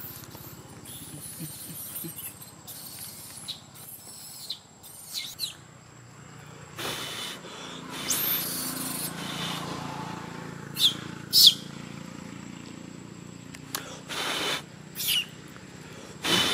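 Infant macaque crying: a series of short, high-pitched squeals that fall in pitch, the loudest two in quick succession about two-thirds of the way in. Short bursts of noise come in between.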